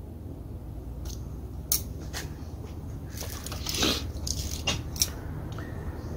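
A few sharp clicks and taps of a screwdriver and small metal carburetor parts being handled and set down on a towel, with a louder rustling scrape a little past the middle, over a low steady hum.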